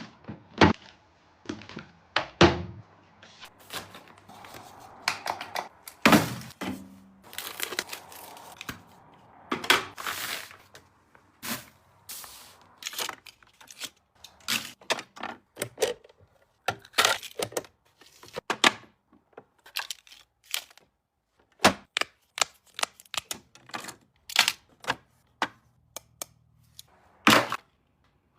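A close, irregular series of sharp clicks, knocks and crackles, like small objects and packaging being handled.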